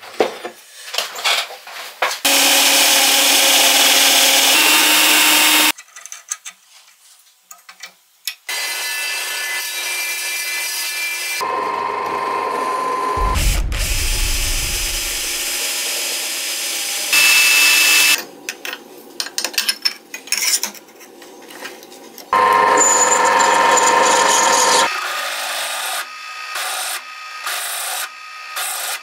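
Workshop power tools working steel in several separate passes of a few seconds each, with clicks and clatter between them. About 13 seconds in, a deep hum falls away.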